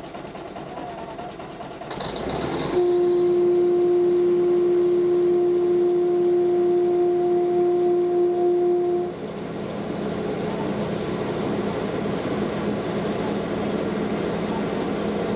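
Horn of an Indian Railways WRB-1 railbus sounding one long steady blast of about six seconds, just after a short hiss, as a warning for a level crossing. Under and after it runs the railbus's diesel engine and the wheels on the rails, with a steady hum.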